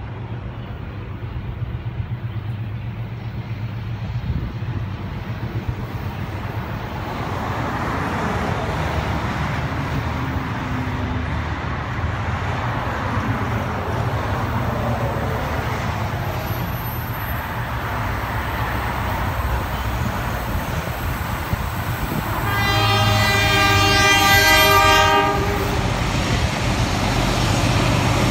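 Approaching NSW 44 class Alco diesel-electric locomotives running under power, their engine drone swelling as they draw near. About three quarters of the way through comes one long horn blast lasting two to three seconds.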